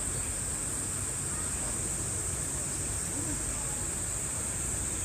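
Steady, unbroken high-pitched drone of a summer insect chorus, with a low murmur of voices underneath.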